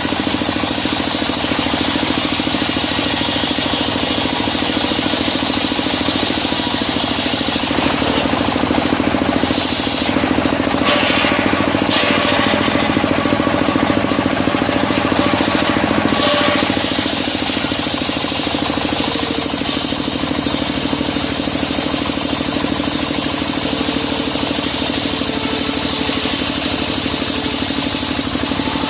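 Engine-driven sawmill running steadily as timber is sawn, with a change in the sound for several seconds in the middle.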